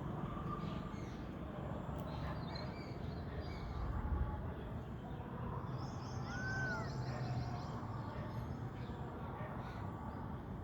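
Birds calling over a steady low background rumble, with one short rising-and-falling call about six and a half seconds in, followed by a quick run of high repeated notes.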